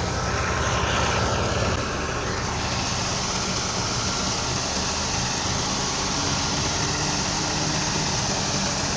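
Tractor-driven wheat thresher running steadily: a diesel engine's drone under the steady rushing noise of the threshing machine. The level dips slightly about two seconds in.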